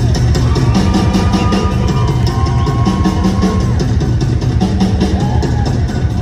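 Live rock band playing loudly: a drum kit hitting fast and dense over electric bass, with long held electric guitar notes that bend in pitch through the first half.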